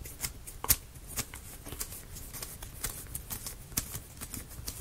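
Light, irregular clicks and taps of small plywood model parts being handled and fitted together.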